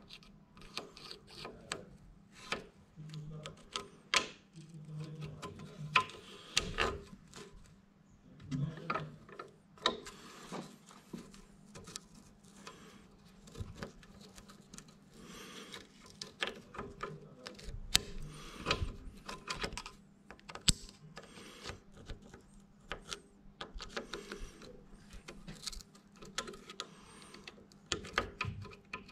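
Irregular metallic clicks, knocks and scraping of hand tools and steel parts being handled while a small tractor's gearbox is worked on by hand.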